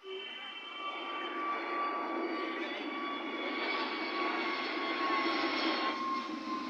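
Jet airliner's engines at takeoff power as it lifts off and climbs away. A steady high whine of several tones rides over a broad rushing noise, swelling over the first second or so and then holding.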